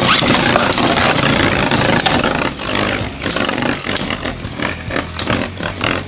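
Two Beyblade spinning tops whirring and grinding against each other in a plastic stadium. From about halfway through come many sharp clicks and knocks as they clash and scrape.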